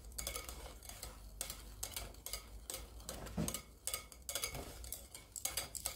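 Wire balloon whisk stirring thick whipped coconut cream in a glass bowl, its wires ticking lightly and irregularly against the glass.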